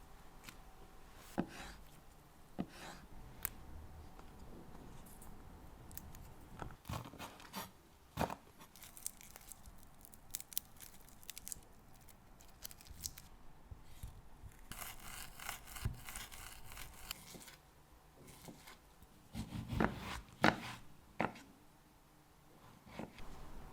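Food-preparation handling sounds: tearing and crinkling with scattered light taps and clicks, and a few heavier knocks near the end.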